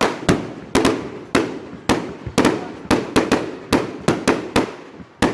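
Fireworks going off in a rapid, irregular string of sharp bangs, about three a second, each trailing off in an echo.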